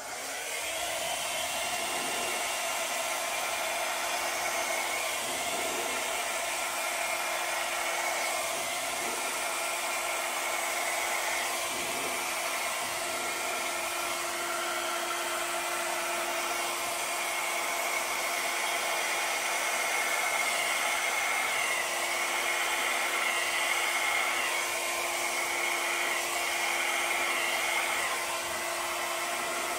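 Handheld hair dryer switched on and running steadily, its motor hum constant under the rush of air as it blows wet acrylic paint across the board in a Dutch pour.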